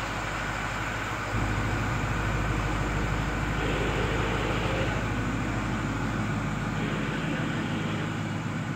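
Vehicle engine idling, a steady low rumble that steps up in level about a second and a half in.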